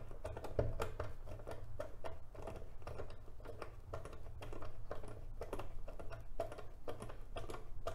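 A hand screwdriver driving small screws into a plastic motorcycle lower-fairing glove box, a run of small irregular clicks and ticks as the screws turn and the plastic parts shift. A steady low hum sits underneath.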